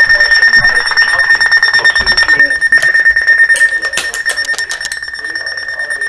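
Weather radio alert alarm sounding, a loud, steady, high-pitched rapid beeping. A run of sharp clicks and handling knocks comes about three and a half to four and a half seconds in.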